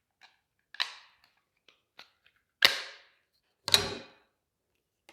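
Plastic cable raceway channels clicking and snapping as their clip-on covers are pressed and released: three sharp snaps, the last the loudest, with a few lighter ticks between them.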